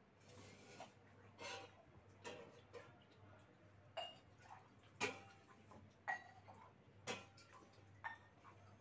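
Metal spoon clinking against a steel pot as its contents are stirred: light, sharp clinks with a brief ring, a few scattered at first and then about one a second.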